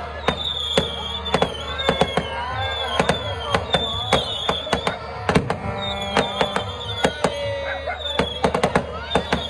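Aerial fireworks going off, with rapid, irregular sharp bangs and crackles several times a second. Music plays throughout underneath the bangs.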